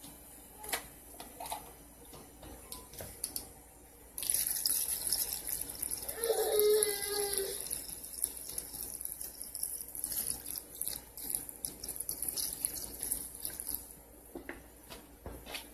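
Fruit punch poured from a large plastic jug into a cooler of mixed juice and fruit: a steady splashing pour starting suddenly about four seconds in and stopping near the end. A few light clicks of the jug's cap being handled before the pour.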